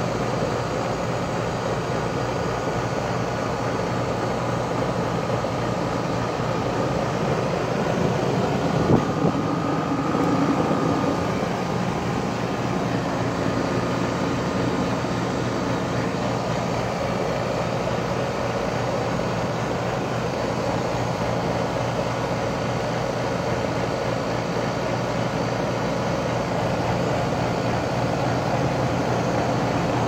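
Outdoor unit of a 2012 Rheem 4-ton heat pump running in cooling mode, its compressor and condenser fan giving a steady hum. There is a single knock about nine seconds in.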